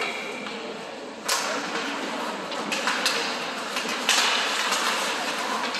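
Ice hockey play in an arena. The tail of a referee's whistle blast ends about half a second in. Then come several sharp knocks, from sticks and the puck striking, each followed by a hissing scrape of skate blades on the ice, over the hum of the rink.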